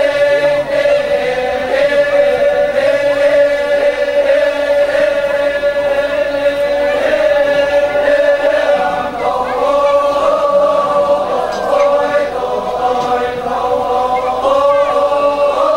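A group of voices chanting a slow Torajan funeral chant in unison, on long held, droning notes. A higher vocal line joins about nine seconds in.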